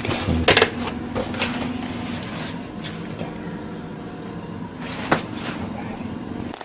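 A steady low mechanical hum with a few sharp knocks or clicks, one near the start, one about a second and a half in and one about five seconds in.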